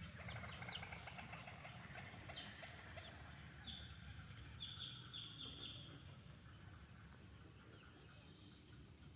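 Faint calls from a colony of nesting birds: quick repeated chirps and chattering, with a run of higher calls near the middle, thinning out toward the end over a low steady rumble.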